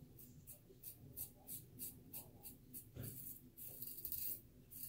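A RazoRock Blackhawk v2 safety razor's Feather Professional blade scraping through lathered stubble in quick, short strokes, about three a second. About three and a half seconds in comes a longer, denser scrape.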